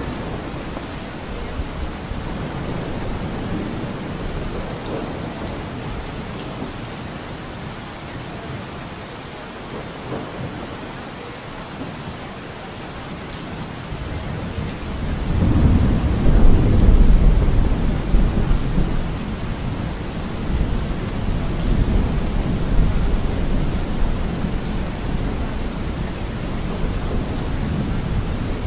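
Steady rain falling, with thunder rumbling low underneath; about halfway through, a louder roll of thunder swells up and then fades back.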